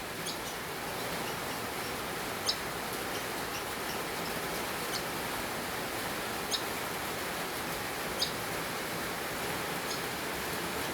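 A sparrow giving short, high chirps, about six of them evenly spaced every second and a half or so, over a steady background hiss.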